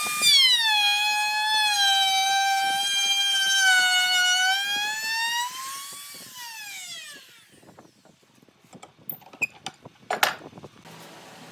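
High-pitched whine of a fast electric power-tool motor, its pitch wavering as it works. About six seconds in it winds down and fades, followed by scattered clicks and knocks, the loudest one about ten seconds in.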